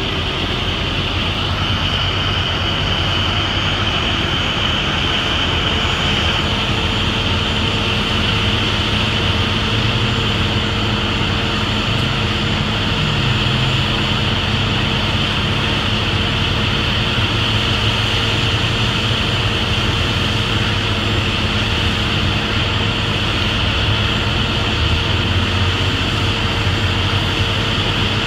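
A large engine running steadily at one speed, with a steady hiss over it and no change for the whole stretch, typical of a fire engine running its pump to feed a charged hose line.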